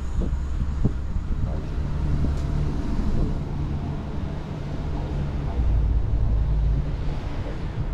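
Low wind rumble on the camera's microphone, with a steady low hum underneath and a couple of faint taps in the first second.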